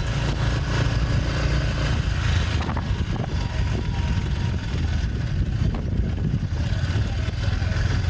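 Riding on a small motor scooter: wind rumbling over the microphone with the scooter's engine running underneath.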